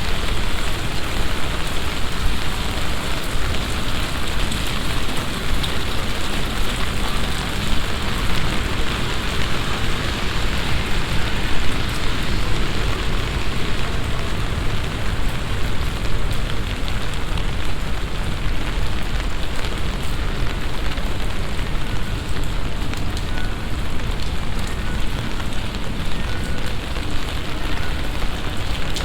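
Heavy summer shower: a steady downpour of rain hissing on the ground and surfaces.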